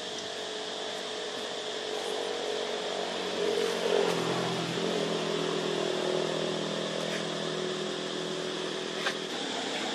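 Steady engine hum that swells and deepens about four seconds in, with one sharp click near the end.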